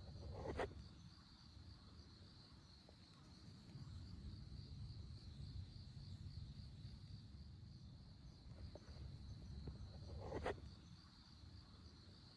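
Crickets chirping in a steady, high, even pulse over a low outdoor rumble, with two sharp cracks, one about half a second in and one near the end.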